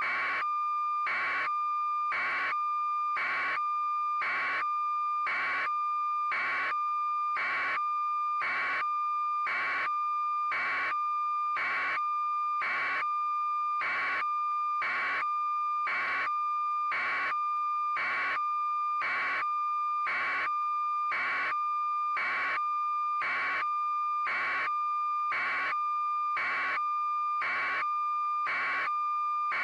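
Steady high-pitched electronic tone, unbroken, with a short click or pip about once a second, at a perfectly even level.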